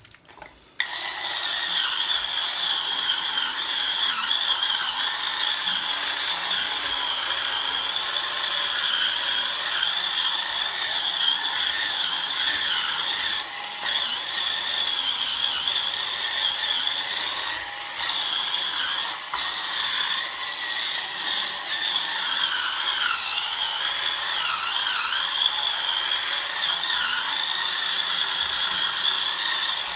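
Hurricane Spin Scrubber, a cordless motorised rotating brush, running with its round brush head scrubbing a sink basin: a steady high motor whine that wavers slightly in pitch. It switches on about a second in.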